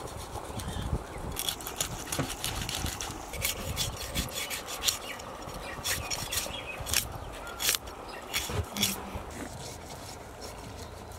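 Knife cutting through the thick skin and flesh of a large whole fish, a run of short rasping scrapes.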